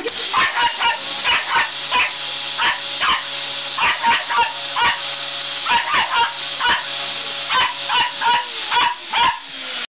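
Border terrier barking over and over, about three short sharp barks a second, at a running vacuum cleaner whose steady whine continues underneath.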